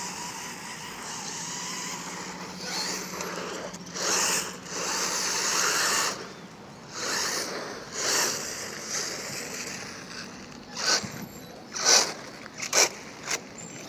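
Quanum Vandal 1/10 electric 4WD buggy driving and sliding on grit-covered asphalt, its tyres scrabbling and spraying loose gravel in repeated surges. Several short, sharp bursts come near the end as it slides close by.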